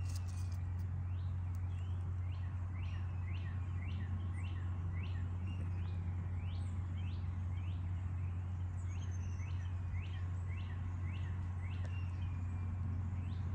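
A steady low hum throughout, with a bird chirping repeatedly over it, short sweeping chirps about two a second.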